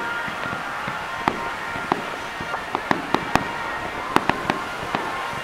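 Aerial fireworks shells bursting during a fireworks finale: sharp bangs at an uneven pace, several a second, over a steady wash of noise, and densest a little after the middle.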